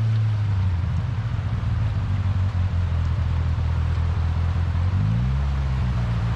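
Side-by-side UTV engine running at low speed on a trail. About half a second in its note drops and turns rough and uneven, and about five seconds in the revs rise to a higher steady pitch.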